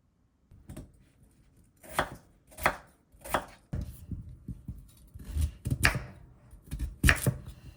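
A kitchen knife chopping on a cutting board: a run of sharp, irregularly spaced strokes with quieter handling sounds in between.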